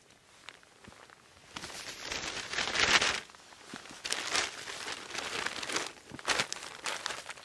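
A foil-faced emergency tarp crinkling as it is gathered up, crumpled and stuffed into its sack. The crinkling comes in bursts, loudest about three seconds in, with a short pause before more bursts.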